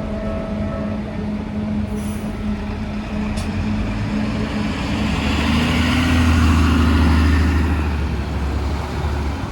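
A heavy vehicle passing close by at the level crossing. Its low hum swells to a peak about six to seven seconds in and then eases off, over steady traffic noise.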